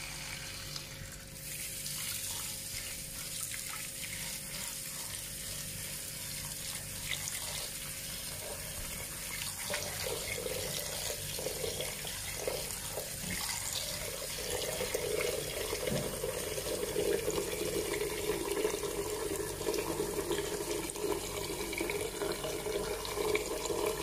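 Kitchen tap running a steady stream into a pot of chopped spinach in a stainless-steel sink, filling it to soak the cut leaves and loosen grit. About halfway through a hand swishes through the leaves and the pour grows louder.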